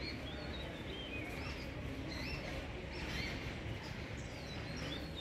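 Birds chirping over a steady low background rumble. Their short, hooked calls repeat every half second or so.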